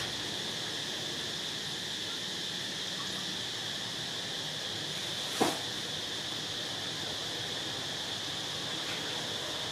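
Steady high-pitched insect chirring over a constant hiss, with one short sharp click a little past halfway.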